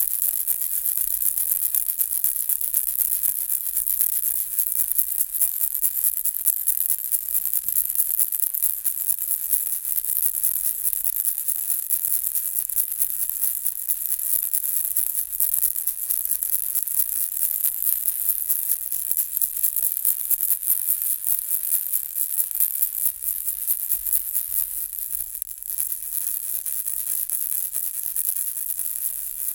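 Baby's toy rattle shaken on and on, a dense, high-pitched rattling of small pellets inside it.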